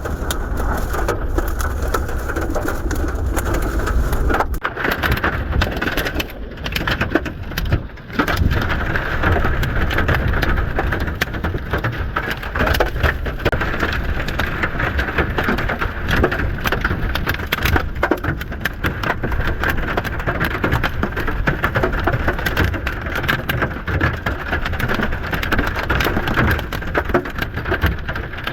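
Heavy rain pelting a vehicle, a steady dense patter of many sharp impacts.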